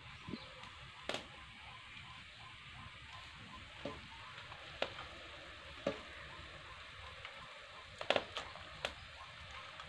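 Curry sizzling in an iron wok over a wood fire, a steady low hiss. A metal spatula clicks sharply against a steel plate and the wok several times as fried dry fish pieces go into the pan, loudest in a quick cluster about eight seconds in.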